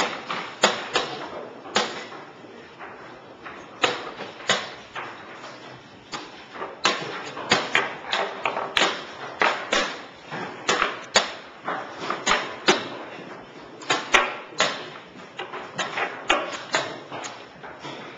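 Chess pieces clicking down on a board and a chess clock's buttons being hit, a quick irregular run of sharp knocks, often in close pairs.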